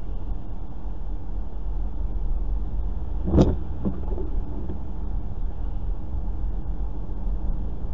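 Car road noise heard from inside the cabin while driving on a wet, slushy highway: a steady low rumble of tyres and engine. A single sharp knock comes about three and a half seconds in, followed by a few fainter knocks.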